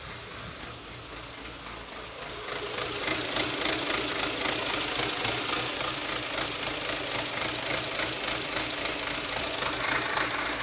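Renault Symbol 1.2 16V four-cylinder engine idling roughly with a steady rattling noise, louder from about two and a half seconds in. The owner says the rattle goes away when the clutch pedal is pressed, which points to the clutch or gearbox side rather than the engine itself.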